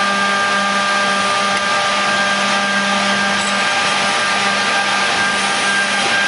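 Griggio GB 5-8RA edge banding machine running with its motors and feeder switched on: a steady rushing hum with a few constant whining tones.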